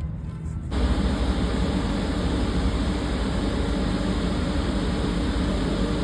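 Air handling unit's blower running: a steady rush of air over a low hum. It comes in abruptly a little under a second in.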